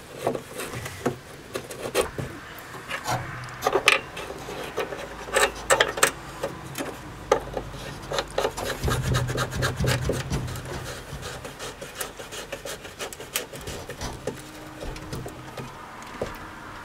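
Hands fitting rubber seals and plastic trim around a car's wiper spindles: irregular clicks, taps and rubbing as rubber and plastic parts are pressed and worked into place.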